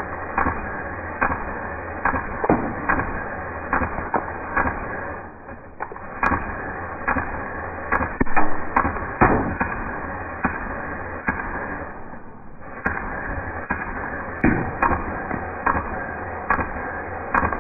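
Full-auto fire from the Barra 400E electric steel-BB rifle, its BBs smacking into full soda cans and the target stand: a long run of sharp cracks and pops, irregularly spaced, with two short lulls, about five seconds in and about twelve seconds in.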